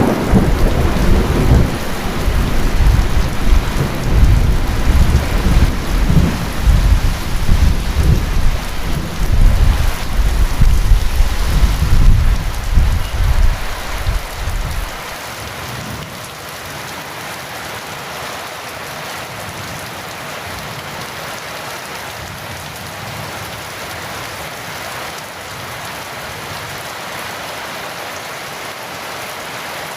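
Heavy rain falling steadily, with a long, deep rumble of thunder over it that stops abruptly about halfway through, leaving only the even hiss of the rain.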